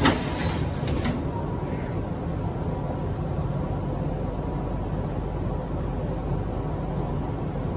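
Subway car doors sliding shut with a sharp thump just after the start, followed by a few lighter clicks about a second in. After that comes the steady low hum and rumble of the train car.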